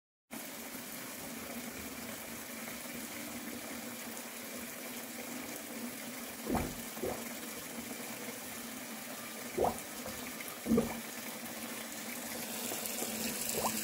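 Kitchen tap running steadily into a stainless steel sink of soapy dishwater, with a few short dull knocks along the way.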